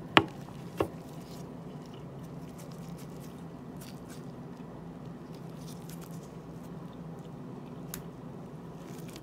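Steady low background hum, with two sharp clicks in the first second and a faint click near the end.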